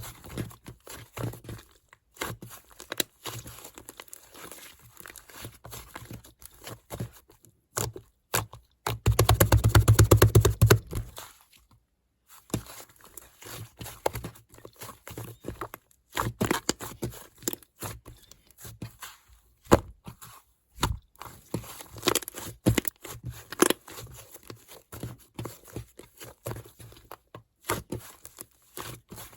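Clay-textured slime being squished, pressed and poked by hand, making sticky clicks and small crackles. About nine seconds in, a louder stretch of rapid crackling lasts roughly two seconds.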